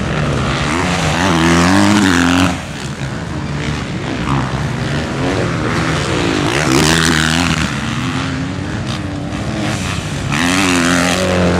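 Several motocross dirt bike engines racing on a dirt track, revving hard and backing off, their pitch climbing and dropping again and again. Bikes come loudest about two seconds in, around seven seconds, and again near the end.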